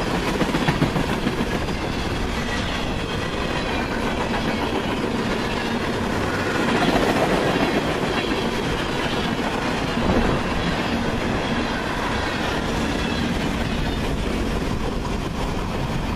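Freight train cars rolling past: a steady rumble of steel wheels on rail with clickety-clack over the rail joints.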